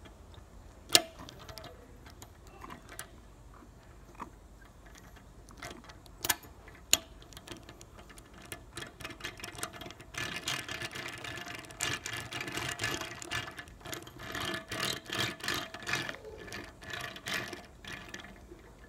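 Small toy Hitachi EH3500AC II dump truck handled on a hard tabletop: a few sharp plastic clicks about one, six and seven seconds in, then a dense, rapid clattering of its parts and wheels from about ten seconds until near the end.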